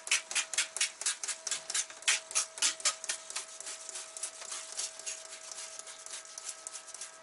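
Hand trigger spray bottle of degreaser being squeezed over and over, about three sprays a second, each a short hiss of spray. The sprays are loudest for the first three seconds and fainter after that.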